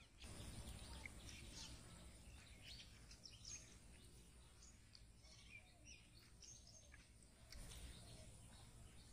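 Faint outdoor ambience: scattered short bird chirps over a low rumble.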